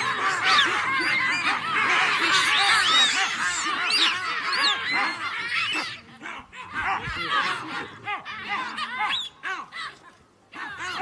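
A troop of baboons screaming and barking together in a dense, overlapping chorus of short high calls, thinning out to scattered calls about halfway through.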